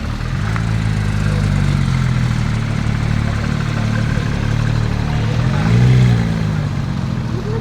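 Porsche 997 Turbo's twin-turbo flat-six idling through a SOUL Competition exhaust, with one short throttle blip about six seconds in that rises and falls back to idle.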